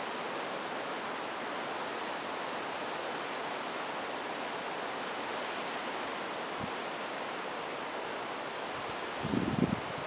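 Steady hiss of strong wind, heard through the camera's mono microphone. About nine seconds in, a short burst of low rumbling wind buffeting hits the microphone.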